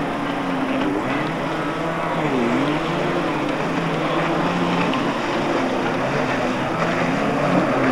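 Two-stroke engines of stand-up jet skis running at speed, their pitch rising and falling as the riders work the throttle through turns.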